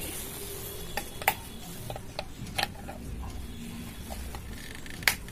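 Several sharp plastic clicks and knocks as a mains plug and an extension-board switch are handled to power up a CRT TV, the loudest about a second in and near the end.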